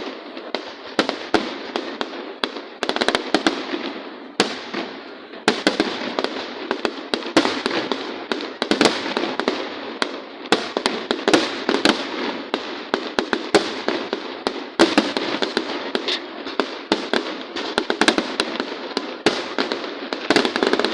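Fireworks display: a dense, continuous string of sharp bangs and crackles, several a second, with no pause.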